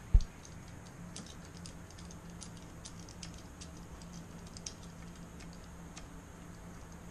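Light, scattered metallic clicks and ticks of small screws and spokes being handled while fitting a motor bike kit's rear sprocket screws through the wheel spokes. There is a dull low thump just at the start and a steady low hum underneath.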